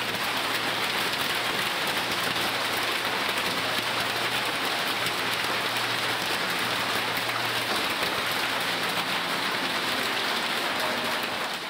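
Heavy rain and hailstones hitting a corrugated sheet roof, a dense, steady patter with no let-up.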